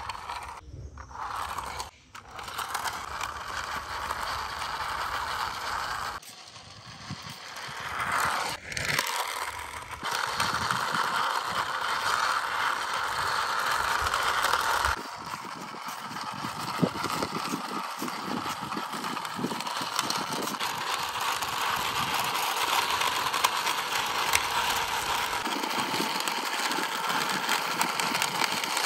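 Plastic toy crane truck pushed by hand along a rough concrete wall top: its plastic wheels rolling and scraping with a steady gritty rattle, in several long pushes with short pauses between them.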